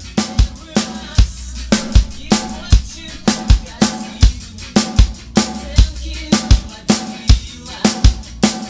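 Acoustic drum kit played with sticks in a fast, steady punk rock beat: bass drum thumps, snare hits and ringing cymbals.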